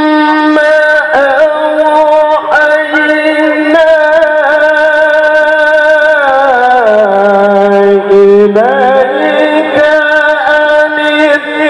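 Male qari reciting the Quran in the melodic tilawah style, holding long ornamented notes. About six seconds in, the melody falls to a lower held note, then climbs back up about two seconds later.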